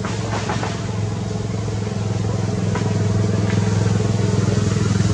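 An engine running with a steady hum, slowly growing louder, with a few faint ticks.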